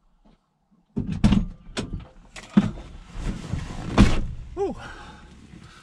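Knocks and thuds in a van cab with rustling in between, as someone handles the van door and moves about inside; the loudest knock comes about four seconds in. A short pitched sound rising and falling follows it.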